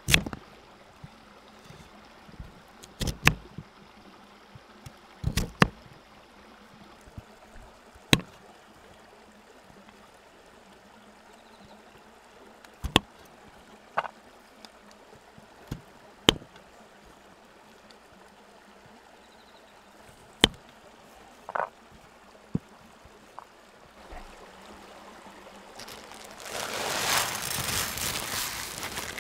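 Kitchen knife cutting a sweet potato on a wooden cutting board: about a dozen sharp, separate knocks at uneven intervals. Near the end a plastic bag of rice rustles and crinkles steadily.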